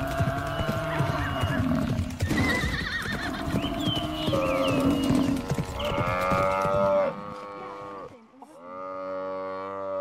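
Cape buffalo bawling in distress, two long drawn-out calls, the second near the end, over the commotion of a buffalo herd and lions fighting.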